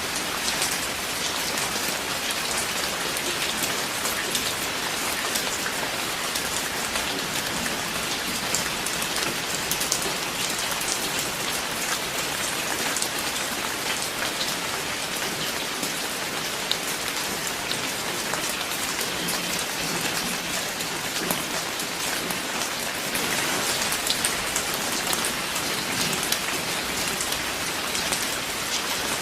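Steady rain falling, a constant hiss with many separate drops ticking through it.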